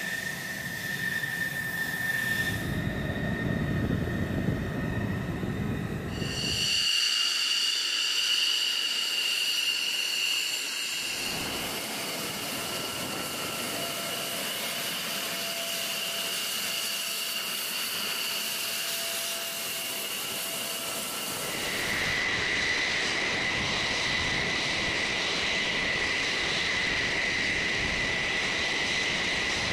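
F-16 fighter jet engines running at idle: a steady high-pitched turbine whine over a rushing hiss. The whine's pitch and the low rumble jump abruptly a few times.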